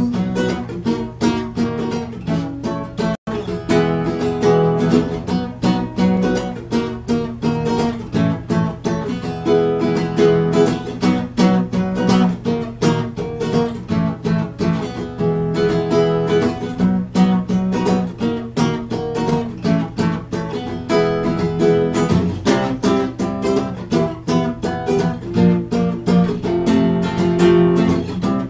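Solo acoustic guitar played continuously, strummed and picked, in an instrumental passage of a song, heard over a video call. The sound cuts out for an instant about three seconds in.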